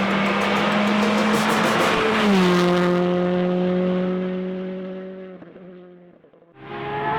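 Porsche rally car passing at speed: its engine holds a steady high note, drops in pitch as the car goes by about two seconds in, then fades away into the distance. Near the end another rally car's engine cuts in suddenly and loud.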